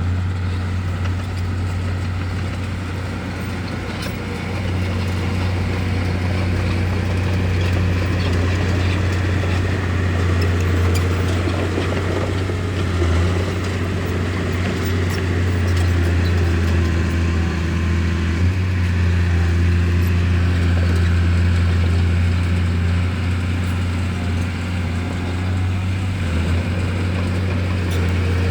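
Bulldozer's diesel engine running with a steady deep drone, its pitch shifting slightly now and then as it works.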